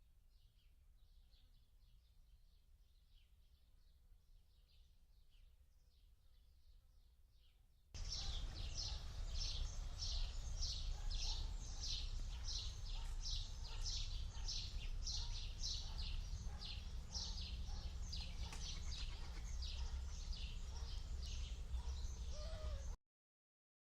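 Wild birds chirping: a steady run of short, high chirps, about two a second. The chirps are faint at first, then the recording jumps much louder about eight seconds in, with a low rumble under it, and cuts off abruptly near the end.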